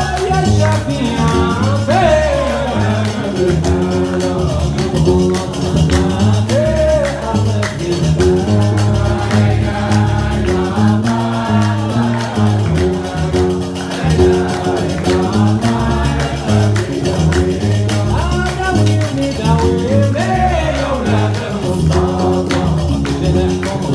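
Gnawa music: a guembri, the three-stringed Moroccan bass lute, plucked in a repeating low bass line, with iron qraqeb castanets clacking a steady rhythm and voices singing over them.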